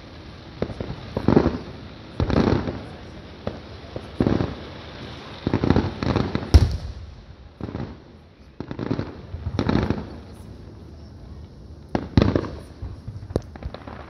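Aerial fireworks shells bursting in a steady series, about a dozen booms roughly a second apart, each trailing off before the next. The loudest bang comes about six and a half seconds in.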